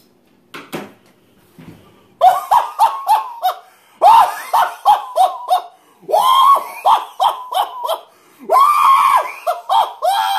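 A man's forced laughter, put on while grimacing with bared teeth, in quick staccato "ha-ha-ha" runs of about four or five a second. It starts after a couple of quiet seconds and comes in four bursts. Near the end it turns into a held, strained high cry.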